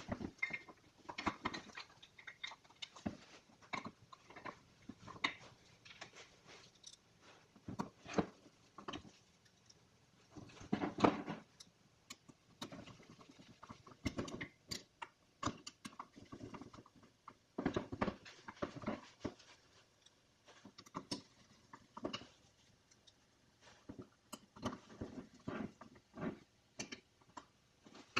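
Scattered small clicks, taps and rustles of hand work on a Honda distributor: the top dead center and crankshaft position sensors being set into the aluminium housing and screwed down with a small screwdriver. The loudest cluster of handling noise comes about eleven seconds in.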